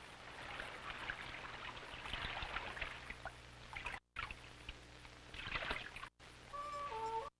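River water rushing and splashing around a canoe and wading men, broken twice by brief silent gaps. Near the end a flute begins playing held notes.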